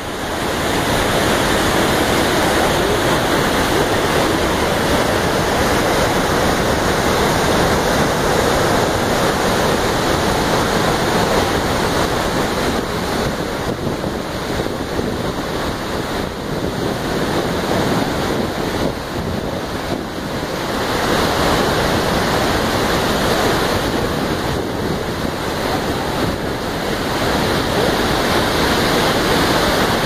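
Iguaçu Falls' cascades and the rapids below them rushing: a loud, steady wall of falling and churning water, with wind buffeting the microphone.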